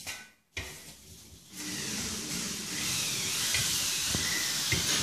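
Stainless-steel trowel scraping across drying marmorino plaster, pressing it down to compact and burnish the surface: a steady, high hissing scrape that starts about a second and a half in, after a brief silent gap near the start.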